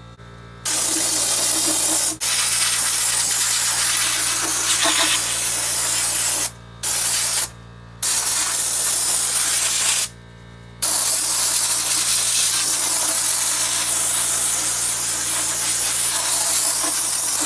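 Pneumatic abrasive spot blaster gun blasting baking soda at a cast-iron turbo housing and exhaust manifold to strip the rust: a loud, steady hiss of compressed air. It starts about a second in and stops briefly three times as the trigger is let off.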